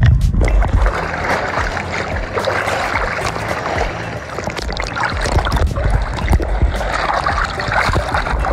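Seawater sloshing, gurgling and splashing around a camera held at the sea surface, dipping under and coming back up, heard as a continuous rough wash with small crackling splashes.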